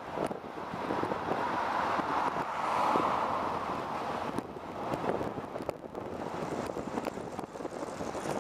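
Ride noise inside a moving city bus: steady engine and road noise with scattered rattles and knocks, swelling a little about three seconds in.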